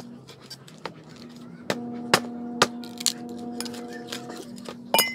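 Machete blade chopping into firewood: about six sharp chops at uneven intervals, the loudest near the middle and just before the end. A steady low hum sounds underneath for part of the time.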